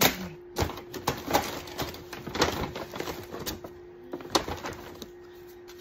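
Brown paper shopping bag rustling and crinkling as a hand rummages in it and pulls items out, with scattered sharp clicks and taps. It dies down about four and a half seconds in.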